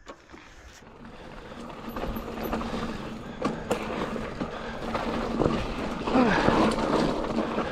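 Mountain bike rolling along a dirt trail: tyre and wind noise growing louder over the first couple of seconds, with scattered clicks and knocks from the bike rattling over the ground.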